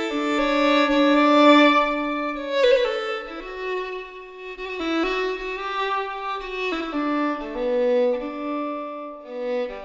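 Violin music: slow, held bowed notes, two notes sounding together and moving step by step.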